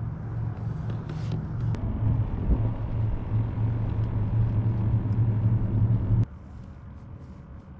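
A steady low motor hum that cuts off suddenly about six seconds in, leaving a much quieter background.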